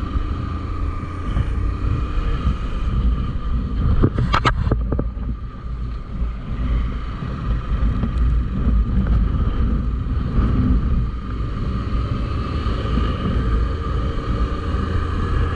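Motorcycle running on the road with wind buffeting the microphone, a steady low rumble throughout. A brief clatter of clicks about four seconds in.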